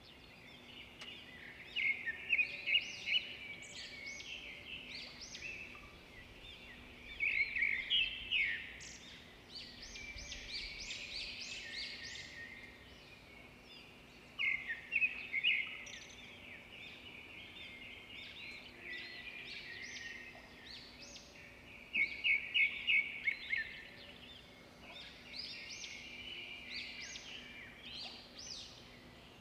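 Birds chirping and singing in bursts of quick high calls every few seconds, over a faint steady hum.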